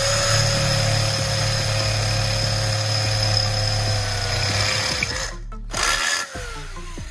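Electric drill running under load as a freshly sharpened twist bit bores through a metal bar, with a steady motor whine and the hiss of the cut. It stops about five seconds in, then runs again in a short burst about a second later.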